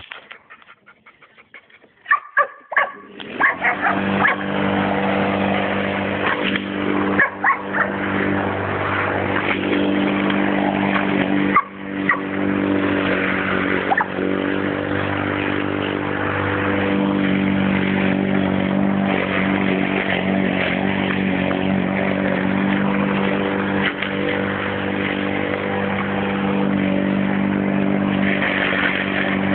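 Small petrol lawn mower engine running steadily from about three seconds in, with a dog barking at it now and then.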